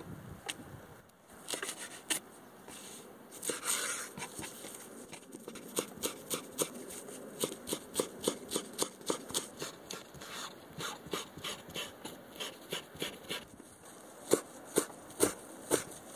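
Chef's knife finely chopping a bunch of shiso leaves on a wooden cutting board: a short rustle and scrape of leaves being handled, then a long run of quick, even knife taps on the board, about three a second, the loudest near the end.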